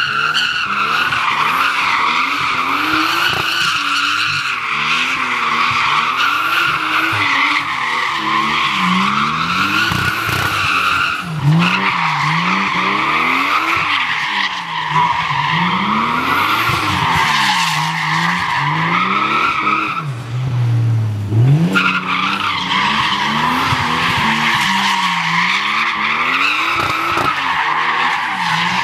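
Toyota Supra Mk IV drifting in circles: tyres screeching continuously while the engine revs rise and fall every couple of seconds. The screech breaks off briefly near the middle, and again for about a second and a half two-thirds of the way through, leaving the engine alone before the tyres start screeching again.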